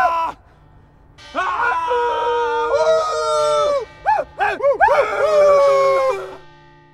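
Wordless voice-like wailing: several long held notes that slide up and down at once. It stops briefly just after the start, has quick rising-and-falling swoops in the middle, and fades out near the end.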